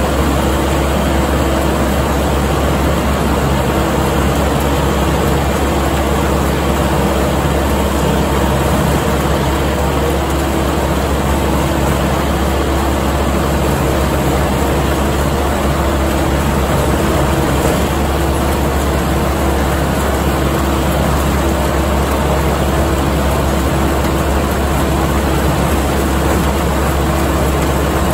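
Kubota MX5200 tractor's diesel engine running steadily under load while it pulls and powers a New Holland haybine cutting standing hay.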